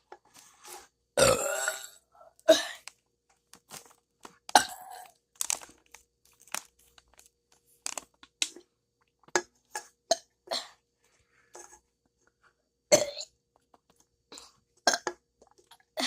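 A person burping several times. The longest and loudest burp comes about a second in, and shorter burps and brief clicking sounds follow.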